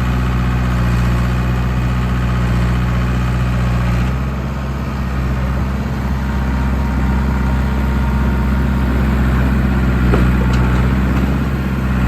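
John Deere 450B crawler dozer's diesel engine running steadily. Its note shifts a little about four seconds in.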